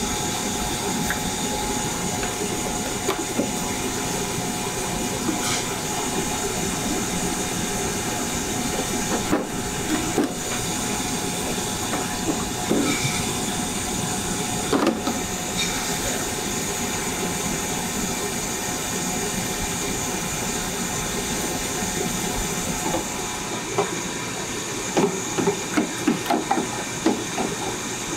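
Food deep-frying in hot oil, a steady sizzle, with clinks and knocks of metal utensils near the end.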